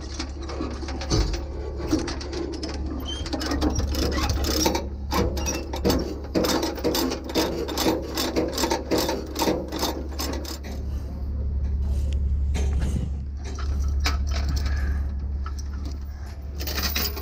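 Ratchet chain load binder being cranked to tension a tie-down chain, its ratchet clicking in quick runs with the steel chain rattling and clinking, over a steady low hum.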